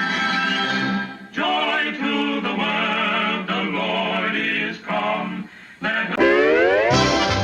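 Orchestral cartoon title-card music: a wavering melody with strong vibrato, broken by two short dips, then a steep rising glide that leads into a loud new passage near the end.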